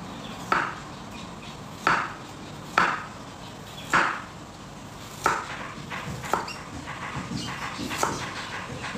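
A kitchen knife slicing through a small piece of food and striking a wooden cutting board: slow, separate cuts about one a second, with lighter taps between the cuts in the second half.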